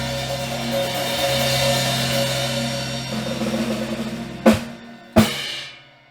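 Live band music ending: a held chord with cymbal wash, then two sharp drum-and-cymbal hits about a second apart that ring out and fade.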